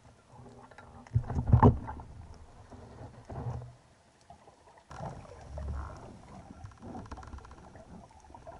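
Muffled water sloshing and splashing around an underwater camera at the sea surface, with a loud splash about a second and a half in. After a sudden change about five seconds in, quieter underwater noise with faint crackling.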